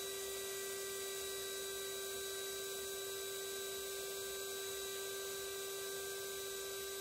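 Handheld electric air pump running steadily, a continuous hum that holds one pitch, as it inflates an air mattress.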